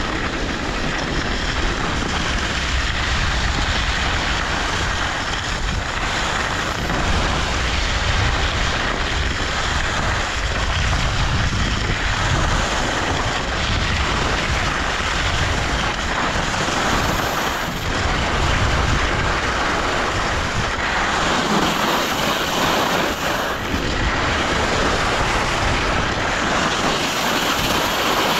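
Steady rushing of wind over the microphone and skis sliding on snow during a downhill run, surging and easing a little.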